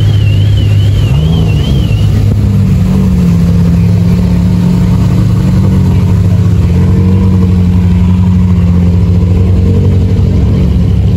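Car engine running at idle, a steady low drone whose pitch rises about a second in and then holds. A warbling electronic tone like a car alarm sounds over it for the first two seconds.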